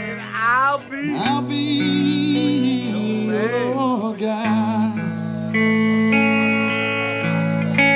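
Live blues-rock band music led by electric guitar, with singing. Wavering, bent notes for the first half give way to steady held notes.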